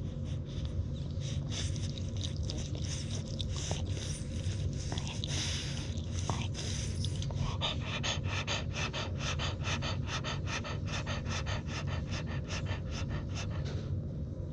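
French bulldog mother breathing noisily through her short muzzle close over her puppy, irregular snorts and sniffs at first, then quick even panting puffs at about four to five a second from about halfway through.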